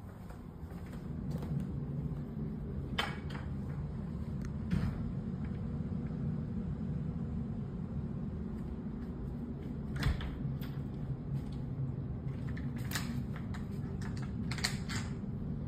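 Footsteps and phone-handling noise from someone walking through an empty, carpeted room: a steady low rumble with a few light clicks and knocks scattered through it.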